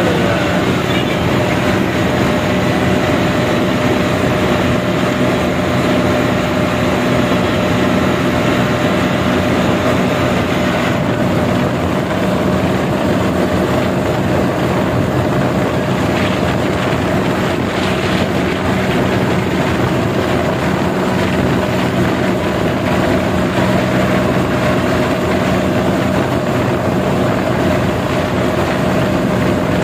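John Deere 5310 tractor's three-cylinder diesel engine running steadily at speed, heard from on board the tractor.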